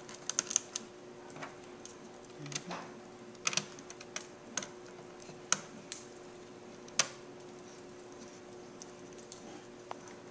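Light, irregular clicks and ticks from a small screwdriver and screws against a Dell Inspiron 1501 laptop's keyboard and frame, with pauses between, as the new keyboard is screwed down.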